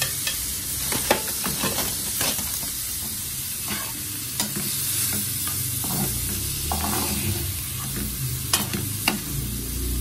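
Diced chicken sizzling in oil in a frying pan while a metal slotted spoon stirs it, scraping and tapping against the pan in sharp clicks; the loudest taps come about a second in and again near the end.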